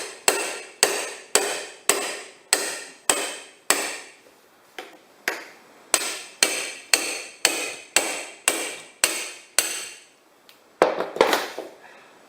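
Hammer blows on a small demolition crowbar wedged between a tyre and a steel wheel rim, driving the bar in to break the tyre bead off the rim. Steady ringing metal strikes about two a second, with a short break about four seconds in and again near ten seconds, then a few quick blows near the end.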